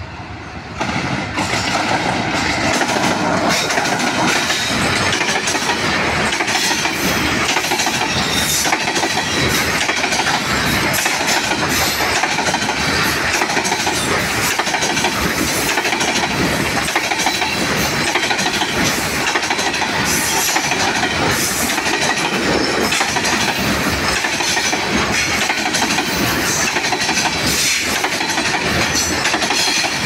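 Freight train of coal hopper wagons rolling past close by, the wheels clattering over the rail joints in a steady, rapid clickety-clack. The noise jumps up about a second in as the train comes level and stays loud.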